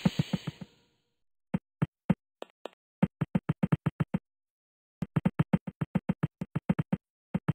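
Cartoon running-footstep sound effects: quick runs of light slapping steps, about seven a second, broken by short silent gaps. A steam hiss fades out in the first second.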